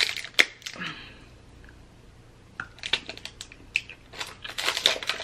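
Foil chocolate wrapper crinkling as it is peeled open by hand: a few sharp crackles, a lull, then a dense run of crackling from about halfway through.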